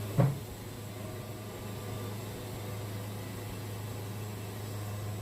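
A steady low machine hum under an even hiss, with no cutting strokes or knocks.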